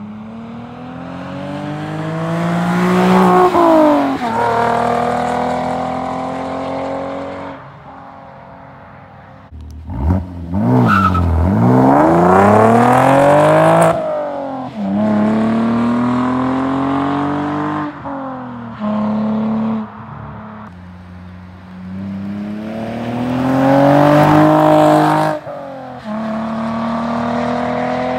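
2016 Camaro's 3.6-litre V6 through Magnaflow race mufflers and an X-pipe, accelerating hard through the gears: the exhaust note climbs in pitch and drops back at each upshift, several times over. About ten seconds in the car passes close by, its pitch sweeping down as it goes past.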